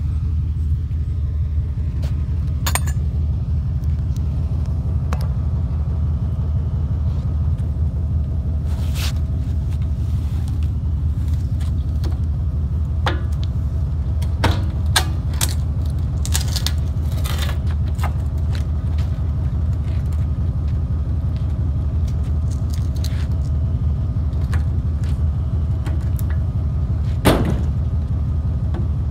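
Steady low rumble of a truck on the move, heard from inside the cab, with scattered short clicks and rattles; one louder knock near the end.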